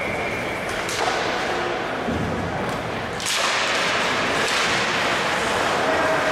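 Ice hockey play in a rink: stick and puck knocks with skates on the ice, a sharp crack about a second in, then a louder wash of skating and rink noise from about three seconds in. A steady high tone sounds through the first second.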